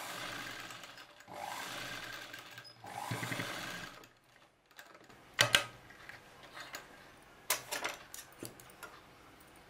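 Sewing machine stitching in three short runs over the first four seconds, stopping briefly between them as the fabric is guided along the seam. After that there are a few sharp clicks and knocks, the loudest about five and a half seconds in.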